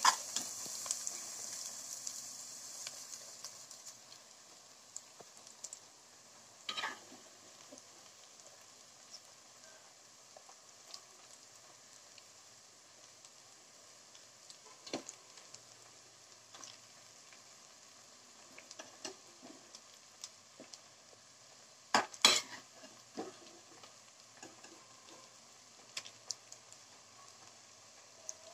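A spoon clinking and scraping against the pot at scattered moments as chicken is layered into the biryani pot. A soft sizzle at the start fades out within the first few seconds. The loudest clatter comes about two-thirds of the way through.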